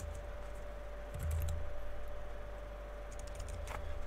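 A few scattered clicks, the sharpest near the end, and a soft low bump about a second in, over a steady electrical hum.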